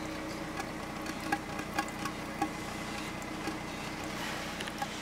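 Car engine idling steadily, heard at the tailpipe while a thin stream of floodwater drains out of the exhaust, with scattered short ticks over the hum. The engine is running fine after the car stood in floodwater.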